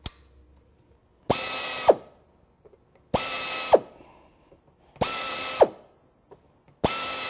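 Pneumatic tapping unit's air motor driving a countersink bit in a drill chuck, chamfering holes in a steel plate: four short runs of about half a second each, nearly two seconds apart. Each run is a steady high whine that drops in pitch as the motor stops.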